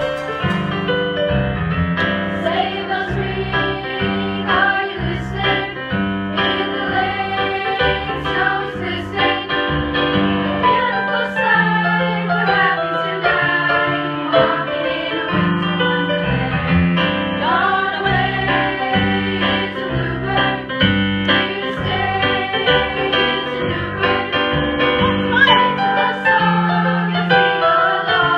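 Music with singing, a choir-like vocal over piano and a steady bass line.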